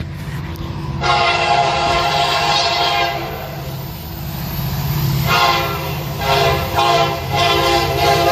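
Norfolk Southern freight locomotive's air horn sounding a chord of several tones: one long blast starting about a second in, then, after it fades, a run of shorter blasts from about five seconds in. The low rumble of the passing locomotive runs underneath.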